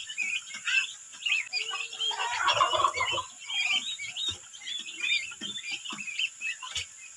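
A brood of turkey poults and chicks peeping constantly in quick, high chirps, with a louder, lower, rougher burst of sound lasting about a second, starting about two seconds in.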